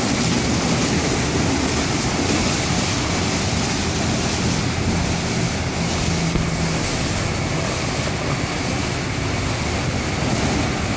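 Soft-touch automatic car wash at work: a steady rush of water spray and spinning foam brushes over a low machine hum.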